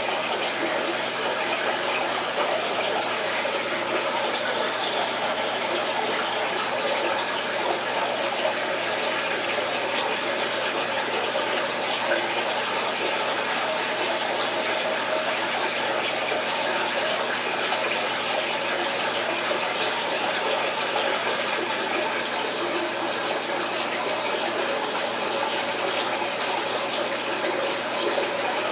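Aquarium water circulating: a steady, unchanging rush of running water, as from a tank filter's outflow.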